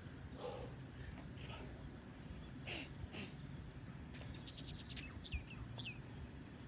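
A man breathing hard as he recovers between rounds of a burpee and kettlebell-swing workout, with two strong exhales about three seconds in. Birds chirp faintly in the second half.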